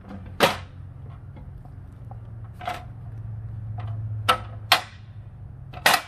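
Mostly aluminium Hilti REDIPAK folding hand truck being folded up. Five sharp metal clacks as the frame sections and wheels knock and lock into place; the first is the loudest. A low hum underneath swells midway.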